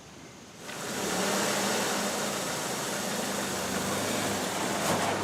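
Car engine running steadily, coming in abruptly under a second in, with a brief faint click near the end.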